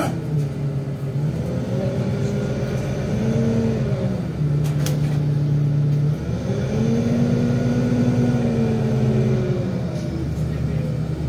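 NefAZ 5299 city bus engine heard from inside the passenger cabin, its note rising and falling several times as the bus pulls away, eases off and speeds up again in slow traffic. A couple of sharp clicks stand out, one right at the start and one about five seconds in.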